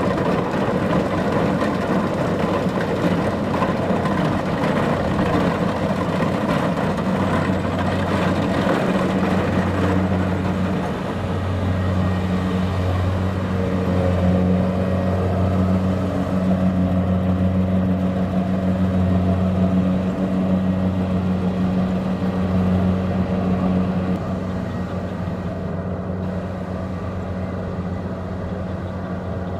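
Kubota DC-70 Plus combine harvester's diesel engine running steadily with a strong low hum, easing off slightly near the end.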